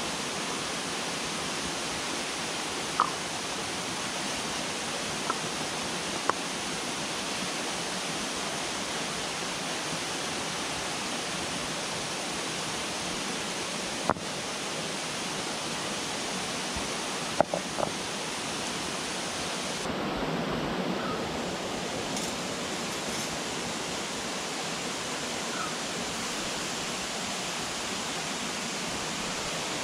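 Steady rushing of a flowing river or stream, with a few sharp clicks and knocks scattered through it.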